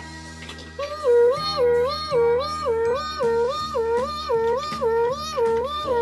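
Two-tone hi-lo siren sound effect, stepping between a low and a high pitch about twice a second, over background music.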